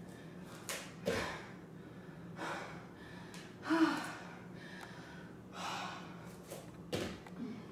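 A woman panting and gasping for breath between deep jump squats, with a short voiced gasp about four seconds in. A few soft thumps of bare feet landing on an exercise mat come in between.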